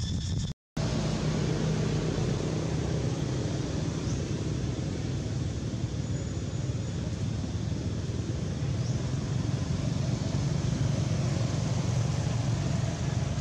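Steady low rumble of a motor vehicle engine running, with the sound cutting out completely for a moment under a second in.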